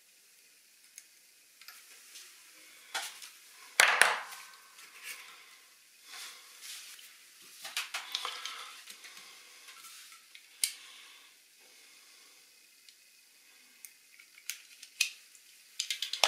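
Scattered sharp clicks and light rustling of hand-tool work: side cutters snipping wire and being set down on a cutting mat, and wire leads being handled and twisted. The loudest click comes about four seconds in.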